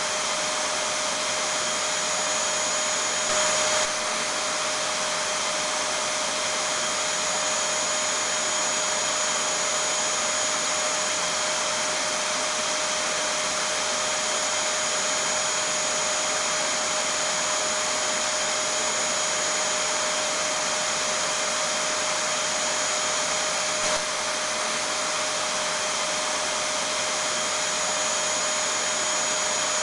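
Vacuum cleaner running steadily: an even rush of air with a constant mid-pitched tone and a high whine over it, briefly a little louder about three seconds in.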